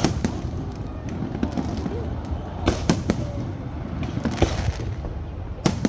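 Fireworks display: sharp aerial shell bangs, a quick cluster of three about three seconds in and others scattered through, over a constant low rumble.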